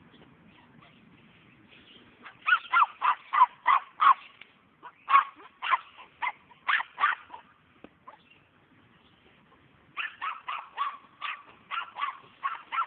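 Puppy yapping at play in high-pitched barks: a quick run of barks about two seconds in, a few more spaced out, then after a pause another quick run near the end.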